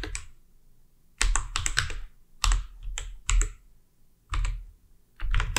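Typing on a computer keyboard: short runs of keystroke clicks, each with a dull thump, separated by brief pauses, after a quiet second near the start.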